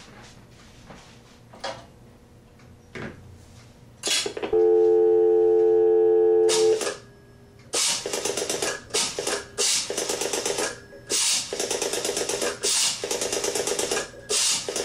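A few faint clicks, then about four seconds in a telephone dial tone comes on, a steady hum of mixed tones, and stops about two seconds later. After a short pause a number is dialed on a rotary dial, heard as bursts of rapid pulse clicks with short gaps between the digits.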